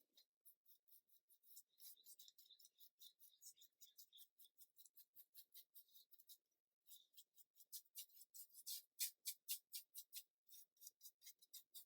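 Paintbrush bristles brushing acrylic paint onto canvas: faint, quick, scratchy back-and-forth strokes, a few each second, growing more distinct about seven seconds in.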